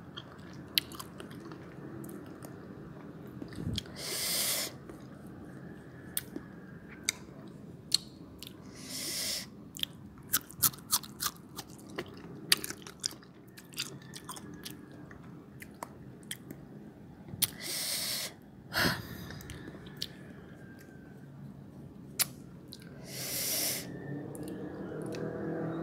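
Close-up chewing and crunching of crisp young green mango slices, with many sharp crunches and a few short hissing breaths, about one every five seconds.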